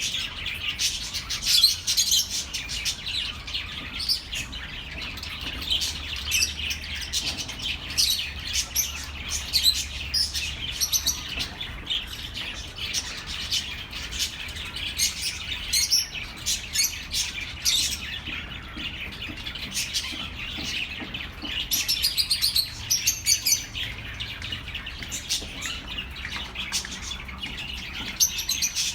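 A flock of budgerigars chirping and warbling over one another, a busy stream of short calls with louder flurries now and then.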